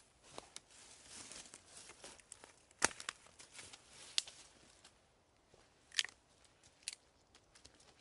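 Footsteps in boots on dry leaf litter and twigs on the forest floor: irregular rustling and crunching with a few sharper snaps, the loudest about three seconds in and again about six seconds in.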